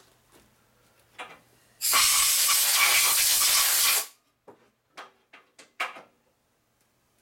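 Compressed-air blow gun blasting for about two seconds, a loud steady hiss as air is blown over a freshly machined steel sleeve to clear the chips. A few light knocks follow as the part is handled.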